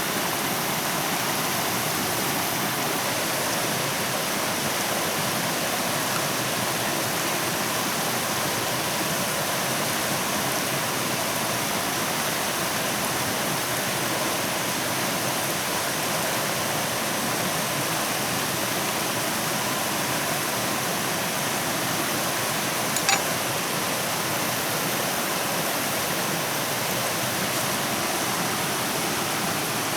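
Steady rushing of flowing water, with a single sharp click a little over 23 seconds in.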